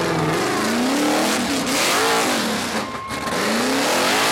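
Rock bouncer buggy's engine revving hard, its pitch climbing and dropping several times in quick surges as it climbs a steep dirt hill under load.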